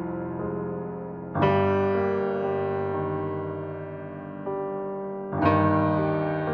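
Background piano music: slow sustained chords, with a new chord struck about a second and a half in and another about five seconds in, each ringing and fading.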